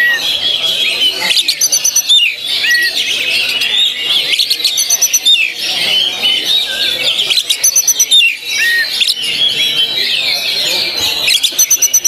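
Oriental magpie-robin (kacer) singing a loud, continuous, ever-changing song of whistles and chattering phrases, with a short rising-and-falling whistle recurring every few seconds and a few quick, high, rattling trills.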